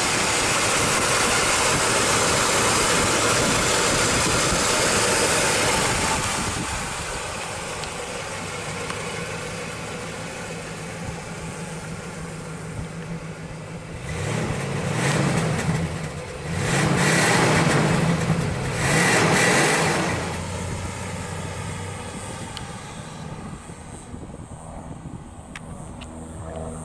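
1977 Mercury Cougar XR7's V8 engine idling steadily. About halfway through it is revved three times, each rise and fall a couple of seconds long, then drops back to a lower, steady run as the car pulls away.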